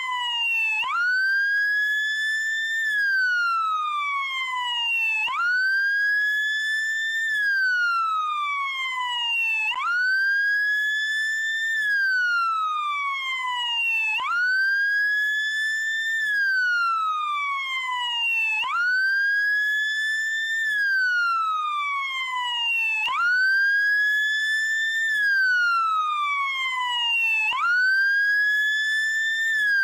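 American police car siren on its wail setting. The pitch jumps quickly up, climbs a little higher, then glides slowly down, repeating about every four and a half seconds.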